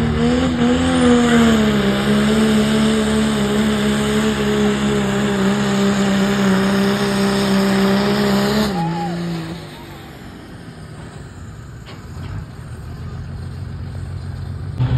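Diesel four-wheel-drive pickup truck pulling a sled under full load, its engine note holding steady after a slight rise near the start. About nine seconds in the note drops and falls away as the truck comes off the throttle, leaving much quieter background sound.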